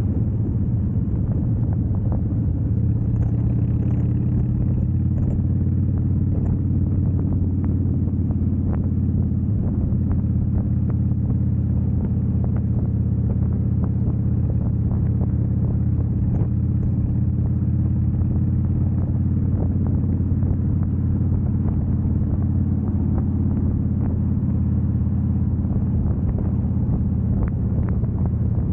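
2005 Harley-Davidson Softail Deluxe's V-twin engine running steadily under way, a constant low exhaust note.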